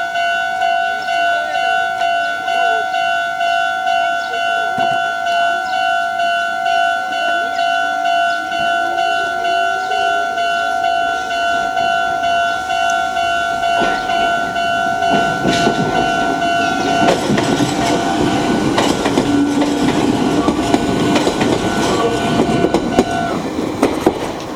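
Japanese level-crossing warning bell ringing in a steady two-tone beat. About fifteen seconds in, a Meitetsu 6000-series electric train comes through the crossing, its wheels clattering over the rail joints, and the bell stops shortly before the end.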